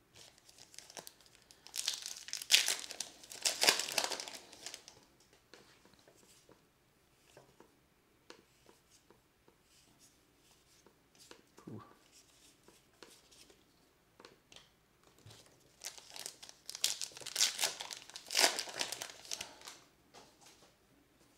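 Plastic wrappers of 2020 Topps Gypsy Queen trading card packs crinkling and tearing as they are pulled open, in two bursts: about two seconds in and again near the end. Between them come faint soft ticks of cards being flicked through by hand.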